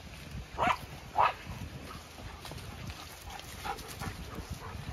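A dog barks twice in quick succession, two short sharp barks about half a second apart, around a second in.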